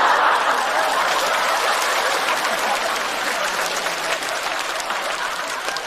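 Studio audience applauding, loudest at the start and slowly fading.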